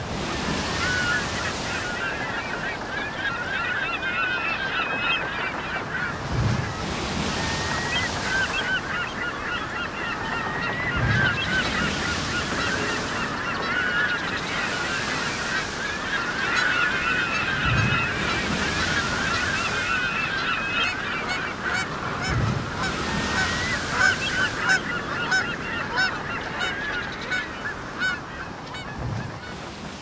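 A flock of gulls calling continuously over surf, with waves breaking on a shore about every five or six seconds.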